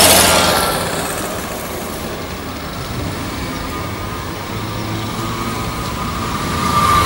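A motor scooter passes close by at the start, its engine noise fading over the first second. After that comes steady street traffic noise, with another vehicle's engine growing louder near the end.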